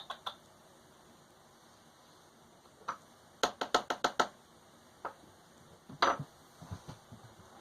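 Scattered sharp taps and clicks, with a quick run of about six in a row a little over three seconds in. A few soft, low knocks follow near the end.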